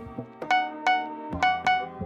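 Music: a keyboard instrument playing about five separate notes, each struck and left to ring.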